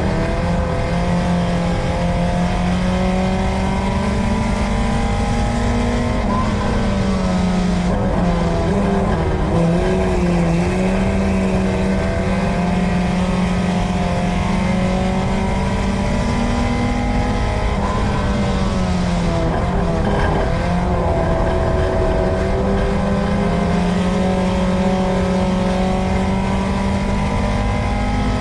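USRA Tuner dirt track race car's engine heard from inside the car, running hard at high revs. Its pitch sags and climbs back a few times as the car lifts off for the turns and accelerates out onto the straights, under a steady rumble of road and wind noise.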